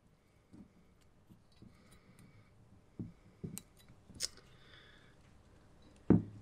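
Small metal hand tools being handled on a workbench: scattered light clicks and taps, a few knocks around the middle, and one sharper knock near the end.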